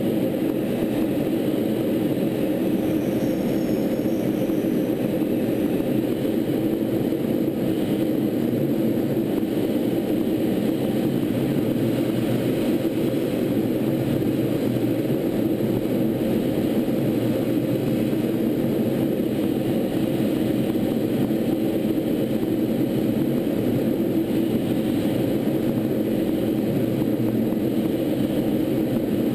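Steady drone of engine and rushing-air noise aboard a T-38 Talon jet in level flight, from its twin J85 turbojets and the airstream. The sound stays even throughout, with no change in pitch or level.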